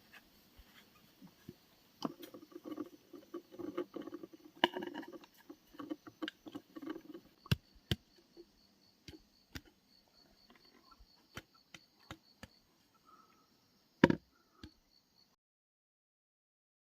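Hand work on a homemade trap: scattered light knocks, taps and scrapes, busiest in the first half, with one loud knock near the end. Crickets chirp in an even pulse from about halfway, and the sound cuts off abruptly shortly before the end.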